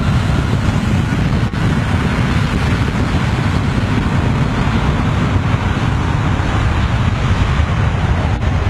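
Jet airliner's engines at high thrust behind the runway fence, a steady loud rush of jet blast buffeting the microphone with wind noise.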